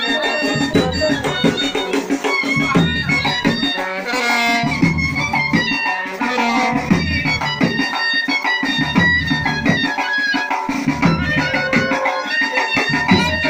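Music with a steady drum beat under a melody.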